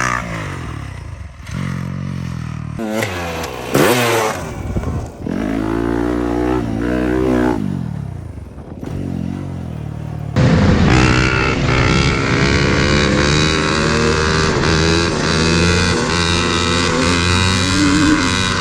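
Dirt bike engine revving up and dropping off several times as the bike is ridden, then, about halfway through, a sudden change to a louder, steadier engine sound.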